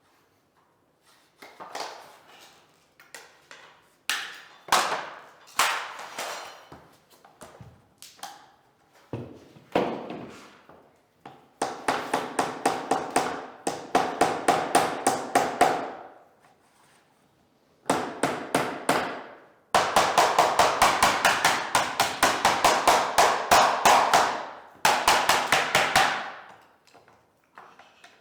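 A hammer or mallet tapping vinyl click-lock planks together. It starts with a few scattered knocks, then comes in quick runs of rapid, even taps broken by short pauses as the joints are knocked home.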